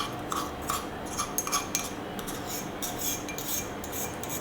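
Irregular light clinks and scrapes of a utensil against a bowl, several a second, as minced garlic is added to a yogurt and spice marinade.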